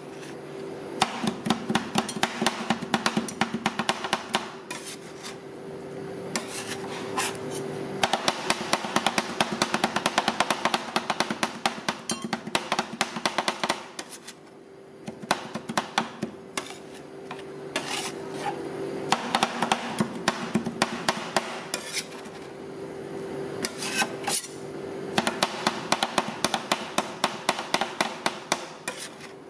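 Two metal spatulas chopping and scraping on the chilled steel plate of a rolled ice cream machine, working a sticky rice and egg ice cream mixture: rapid clacking in runs, with short lulls about halfway and two-thirds of the way through.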